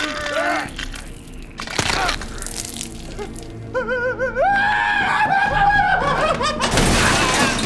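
Film soundtrack over music: a man's scream that wavers, then is held for about two seconds. It follows laughter at the start and a sharp hit, and a loud burst of noise comes near the end.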